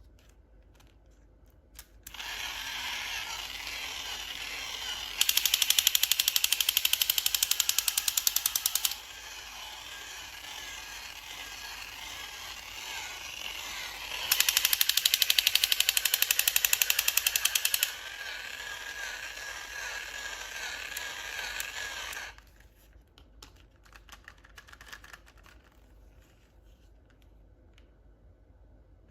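Small motor and plastic gears of a battery-powered toy running with a fast, even buzz for about twenty seconds. It grows much louder twice, for a few seconds each time, then stops.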